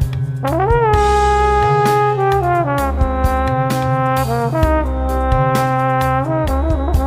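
Instrumental background music: a lead melody of long held notes over a bass line and a steady drum beat.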